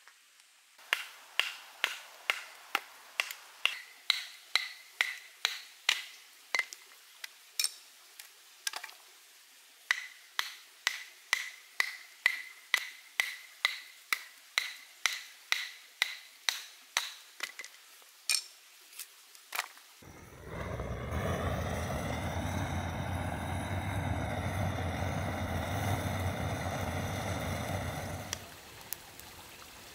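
Firewood being split into kindling: repeated sharp strikes, about two a second, each with a short metallic ring. About twenty seconds in, a butane torch lighter runs with a steady roar for about eight seconds as it lights the kindling in a stainless steel camp wood stove.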